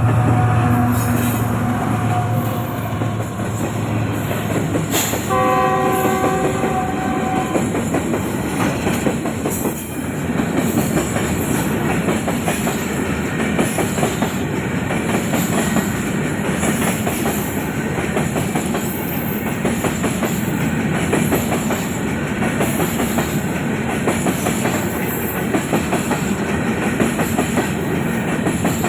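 Long freight train passing. Its locomotive horn sounds once for about two seconds, around five seconds in, then the wagons go by in a steady clatter of wheels over the rail joints.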